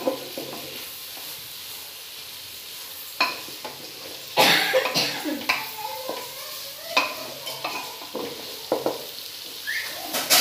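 Wooden spatula stirring and scraping chopped vegetables frying in oil in an aluminium pot, over a steady sizzle. Sharp scrapes and knocks of the spatula against the pot come every second or so, most thickly about four to five seconds in.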